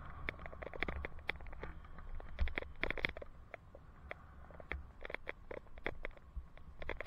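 Riding a bicycle, heard from a helmet camera: irregular clicking and rattling, thickest in two spells, over a steady low rumble of wind and road.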